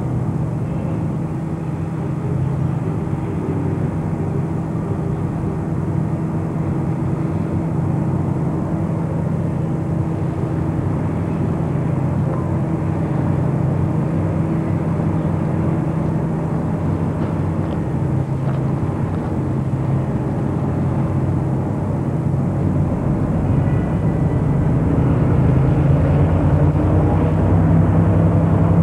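Diesel engine of an EMD SW1200 switcher locomotive running with a steady low drone as the locomotive moves slowly, growing louder near the end.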